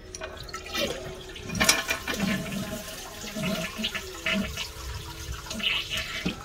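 Toilet flushing as the tank drains through its newly fitted flapper into the bowl, with rushing, gurgling and splashing water.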